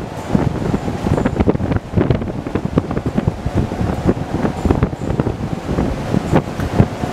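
Strong wind buffeting the microphone: a dense, churning rumble full of rapid gusts and thumps.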